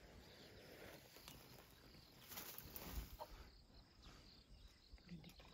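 Near silence: faint outdoor ambience with crickets chirping steadily, and a brief rustle about halfway through.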